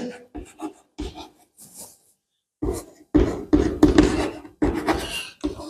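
Chalk writing on a blackboard: a few light taps, a short pause, then about three seconds of quick chalk strokes and taps.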